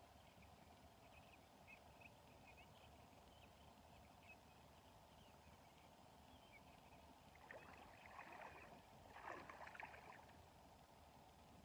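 Quiet riverside background, then two brief bursts of water splashing, about seven and a half and nine seconds in.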